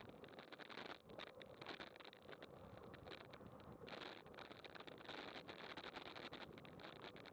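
Faint wind and rolling noise of a bicycle descending at about 20 mph, with frequent small irregular clicks and rattles.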